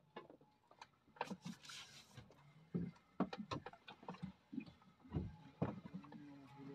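Scattered, irregular knocks and clicks of gear and hands on a small fishing boat, with a brief hiss about two seconds in.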